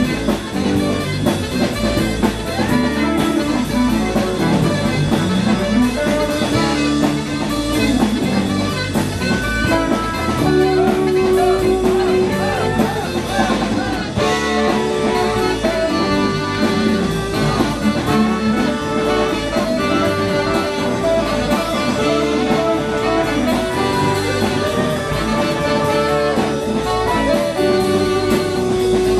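Live rock band playing an instrumental passage: electric guitars, bass and drum kit keeping a steady beat, with saxophone among the instruments.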